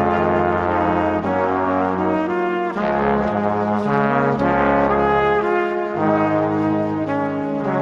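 Background instrumental music: a brass-like melody of held notes over a bass line, the notes changing every second or so.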